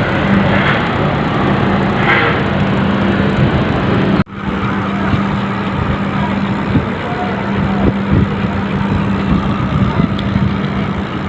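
New bicycle freehub spinning freely, its ratchet pawls clicking so fast they run together into a steady loud buzz. It briefly cuts out about four seconds in, then carries on.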